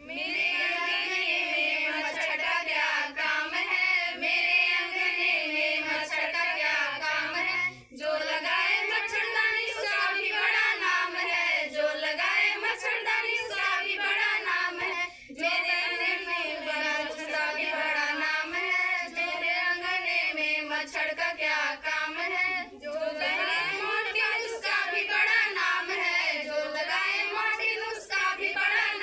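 A group of young women singing a song together in chorus, without instruments, pausing briefly between lines.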